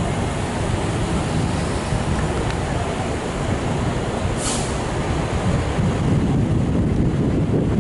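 R160 subway train running on elevated track, a steady low rumble, with a brief high hiss about four and a half seconds in.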